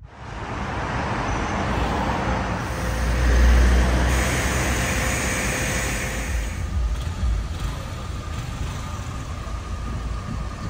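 Road traffic going by, with one vehicle passing close and loudest about three to four seconds in.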